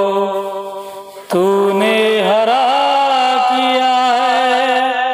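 A man singing an Urdu munajat (prayer poem) in long, drawn-out held notes, with a brief break for breath a little over a second in.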